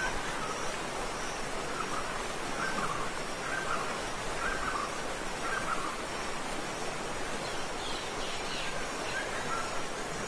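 Steady rushing water of a waterfall, with a bird calling over it: a run of short repeated calls through the middle, then a few quick falling notes near the end.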